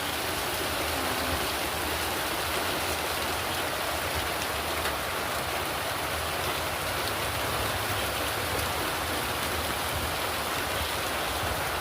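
Rain falling steadily, a constant even hiss with faint scattered drop ticks.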